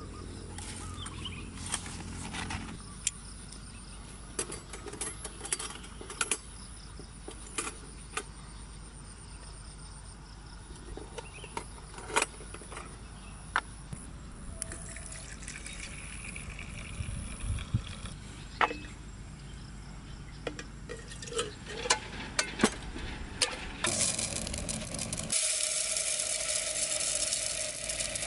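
Clinks, taps and knocks of metal camp cooking gear being handled: a folding steel stove and a brass alcohol burner. Near the end, dry rice is poured into an aluminium mess tin, a steady loud hiss that lasts a few seconds.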